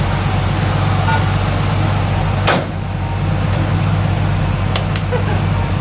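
1990 Jeep Cherokee XJ engine running steadily on its freshly rebuilt fuel injectors, with a single sharp knock about two and a half seconds in.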